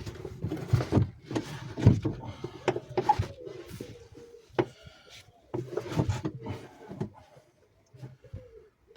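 Irregular knocks, clicks and scraping of hands working parts loose, with a brief squeak around the middle; the loudest knock comes about two seconds in.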